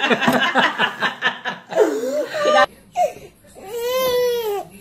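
Laughter and voices, then a baby crying: one long wail near the end that rises and then falls in pitch.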